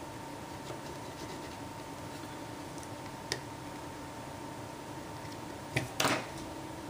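Light scraping and a few small clicks of a hand tool cleaning old screen adhesive off a smartphone's frame, with a louder short scrape near the end. A steady faint hum runs underneath.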